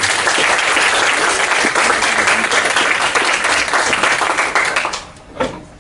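Audience applauding: dense clapping that begins at once, fades out about five seconds in, and leaves a couple of last claps.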